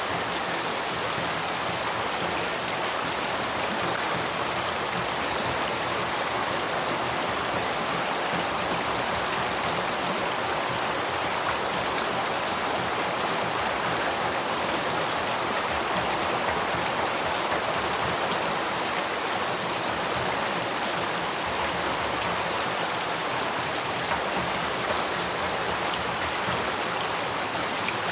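Spring-fed stream flowing, a steady, unbroken rush of running water.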